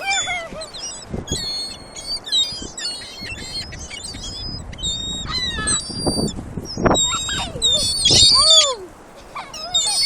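A flock of gulls calling over one another, many short high-pitched cries in quick succession, growing busiest and loudest about eight seconds in.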